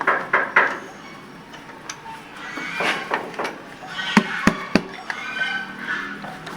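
Hand tools clinking against metal during work on the engine's valve gear, with three sharp metallic clicks about four seconds in, and low voices in the background.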